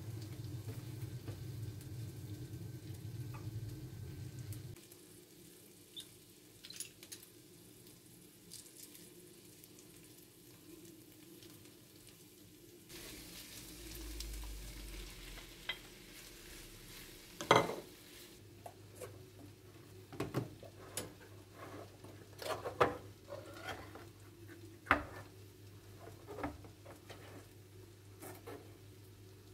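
Sliced meat tipped into a hot frying pan, sizzling, then stirred with a wooden spoon. In the second half come sharp clinks and knocks of utensils against the pan and against a tin can being pried open with a spoon. A low hum runs through the first few seconds and comes back later.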